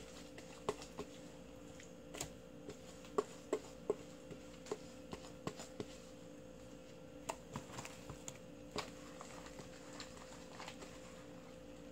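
Light, irregular clicks and taps of a bowl and utensil against a large mixing bowl as red pepper seasoning paste is added to salted napa cabbage for kimchi, the sharpest cluster a few seconds in, under a faint steady hum.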